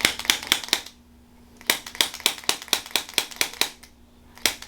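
Handheld chiropractic tapping instrument clicking in quick even taps, about five a second, in runs broken by two short pauses. It is working over the neck and shoulder muscles.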